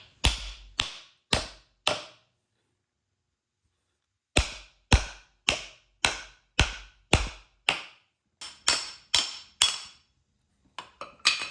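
Repeated hammer blows driving a shaft part out of a Bush Hog RZ60 rotary cutter gearbox. Each strike is sharp with a brief ring. Four blows come first, then a pause of about two seconds, then a steady run at about two strikes a second, with a few lighter taps near the end.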